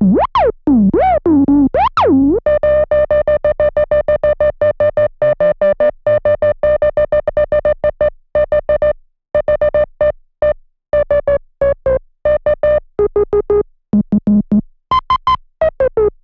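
Moog Minimoog Model D analog synthesizer: for the first couple of seconds swooping glides up and down, then a fast run of short staccato notes, mostly repeating one pitch, broken by pauses in the second half and jumping to higher notes near the end.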